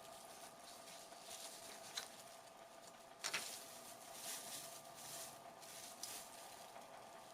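Rummaging among small items on a bench: light rustles and clicks, with a sharp click about two seconds in and a louder clatter a little after three seconds, over a faint steady hum.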